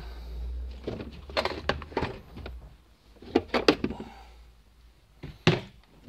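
Scattered knocks and clunks of handling, the sharpest about five and a half seconds in, over a low rumble during the first couple of seconds.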